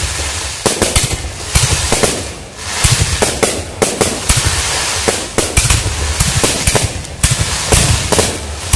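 Aerial fireworks going off in quick succession: many sharp bangs and crackles over a continuous hiss as shells launch on sparkling trails and burst overhead.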